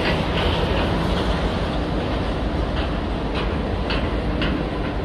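Steady low rumble and noise of container cargo handling on a ship's deck, with a few light knocks around three to four and a half seconds in.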